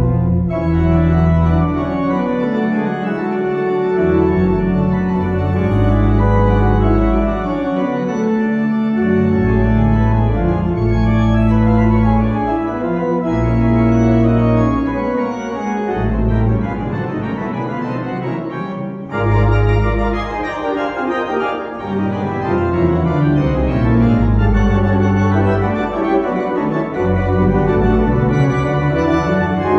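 Church organ playing slow sustained chords over deep held bass notes, the chords changing every second or two; there is a brief break about 19 seconds in before a new phrase begins.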